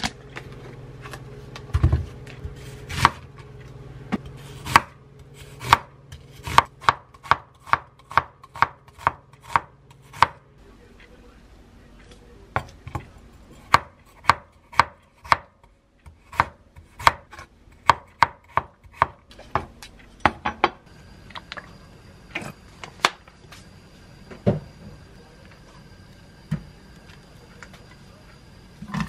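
Kitchen knife slicing onion and potato on a wooden cutting board, the blade knocking the board in quick runs of strokes, about three a second, with short pauses between runs.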